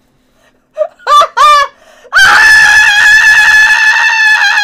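A young man's high-pitched screaming in rough horseplay: three short high yelps about a second in, then a long, loud scream held at one high pitch from about halfway through.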